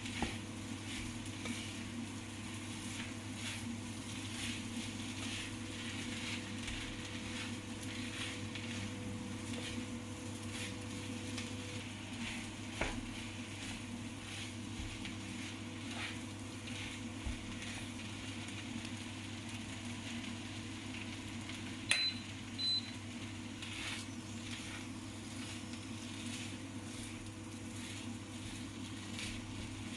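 Kottu roti sizzling on a flat iron griddle while metal blades chop and scrape through it in a steady rhythm of light strikes, about two or three a second, over a constant low hum. Two short high beeps sound about two-thirds of the way in.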